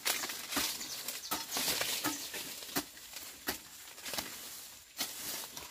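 Hoe chopping into weedy soil in a steady run of strokes, about eight short impacts spaced under a second apart, with scraping and rustling of cut brush between them.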